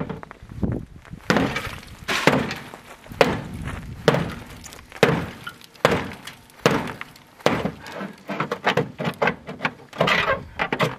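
Boker Vox T-Hawk carbon-steel tomahawk chopping into a car's sheet-metal fender and hood, hacking a line through the panel. The strikes come about once a second, then faster and closer together near the end.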